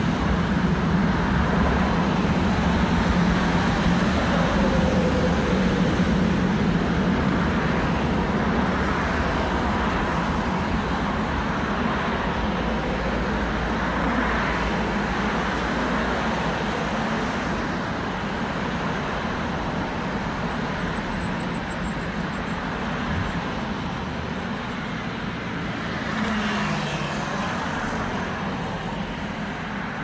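Steady road traffic noise from cars passing on a multi-lane road, with a low rumble in the first several seconds while an electric subway train also passes. Near the end one car passes closer, briefly louder.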